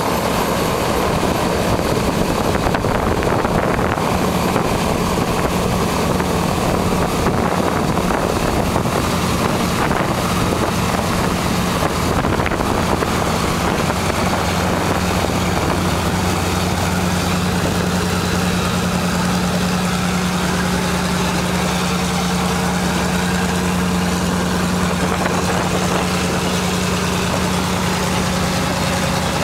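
The two radial piston engines of a Douglas DC-3 running as the aircraft taxis in, then settling into a steady, even idle from about halfway through.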